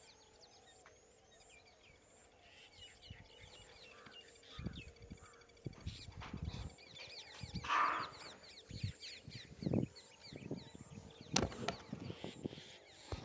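Small birds chirping and calling in short repeated notes, joined from about a third of the way in by low, irregular thuds and rustles, with a louder sharp sound near the end.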